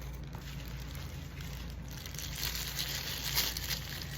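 Paper burger wrapper crinkling and rustling as it is handled. It is faint at first and louder and more crackly over the second half.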